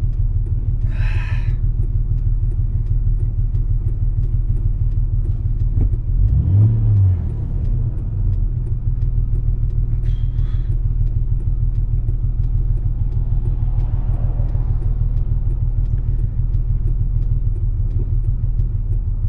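Nissan Patrol engine idling steadily, a low hum heard from inside the cab, with a brief louder swell in the rumble about six seconds in. The vehicle has been cutting out whenever it is given throttle, with the engine light on, and the owner suspects the alternator.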